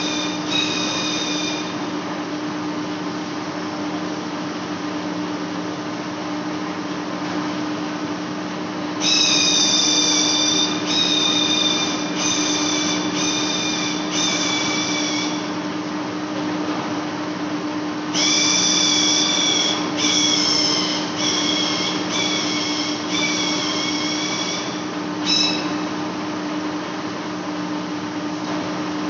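Large lathe facing a big metal flange: a steady machine hum under a high screeching squeal from the cutting tool on the turning face. The squeal comes in pulses about a second apart, briefly at the start and then in two longer runs, about a third and two-thirds of the way through.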